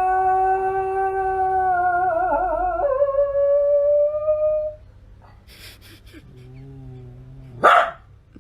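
A dog howling: one long howl that holds steady, wavers and drops in pitch about three seconds in, and dies away near five seconds. A fainter, lower sound follows, then a short, loud sharp sound near the end.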